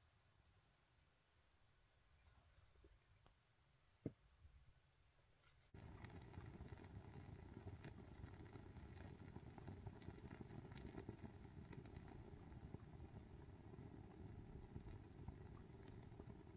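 Faint, steady pulsing trill of insects. From about six seconds in, a small wood fire burning in a stainless steel smokeless fire pit adds a low rush with light crackling.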